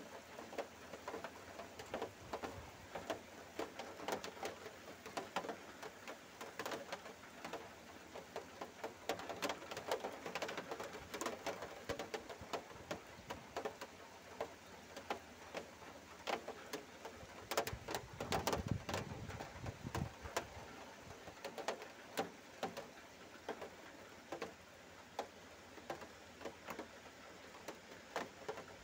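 Heavy rain hissing steadily, with drops tapping irregularly and sharply on a hard surface close by. A low rumble comes in for a couple of seconds past the middle.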